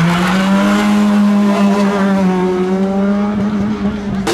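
A modified car's engine revved hard and held at high revs, the note climbing slightly at first and then staying steady.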